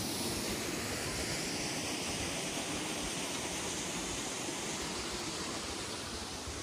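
Steady rushing of water from a waterfall, an even hiss with no breaks.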